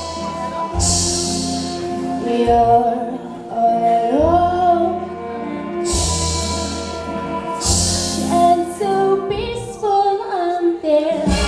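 A girl singing solo into a handheld microphone through a PA, over instrumental accompaniment that comes in with short loud bursts between and under the sung lines.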